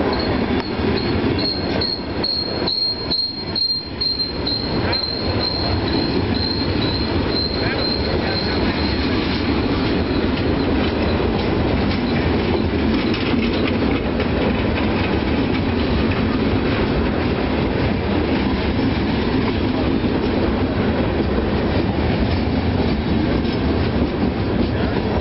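Freight train of open-top gondola and hopper cars rolling steadily past, a continuous rumble of wheels on rail. For the first ten seconds or so a thin, high wheel squeal pulses over it and then fades out.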